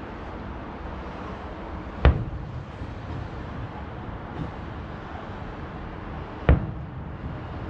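Two distant aerial firework shells bursting, each a sharp boom with a short rumbling tail, about four and a half seconds apart, over a steady background hiss.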